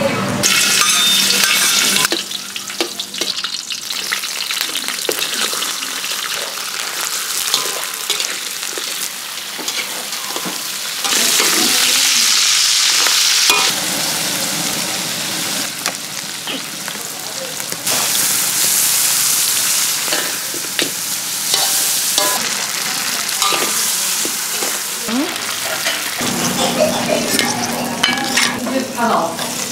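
Crab frying in hot oil in a steel wok: a steady sizzle with scattered scrapes and clinks of stirring. The sizzle changes in loudness abruptly several times and is strongest about eleven to fourteen seconds in.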